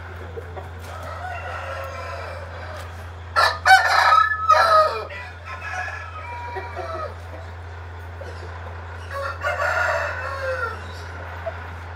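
Aseel roosters crowing: a loud crow about three and a half seconds in and a softer one near the end, over a steady low hum.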